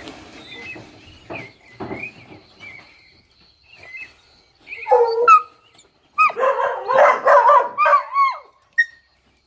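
Dogs barking and yelping: faint whiny cries at first, a loud bark about five seconds in, then a run of loud barks and yelps from about six to eight and a half seconds.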